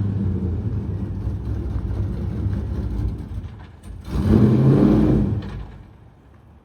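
The LS1 V8 of a 2002 Pontiac Trans Am WS6 running as the car drives. The engine note is steady, dips about three seconds in, then surges louder under acceleration about four seconds in before fading away near the end.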